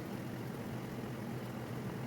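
Steady low-pitched background noise, an even hum-like hiss with no distinct events.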